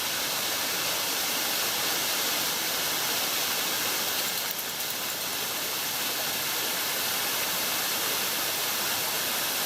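Small cascade waterfall pouring steadily into a rock pool: an even, unbroken rush of falling water.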